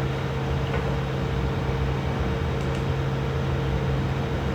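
Steady machine hum: a low drone with a fainter, higher steady tone over an even rushing noise, unchanging in level.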